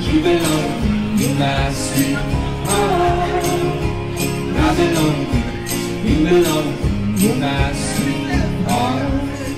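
A man singing a melody live into a microphone while strumming an acoustic guitar in a steady rhythm.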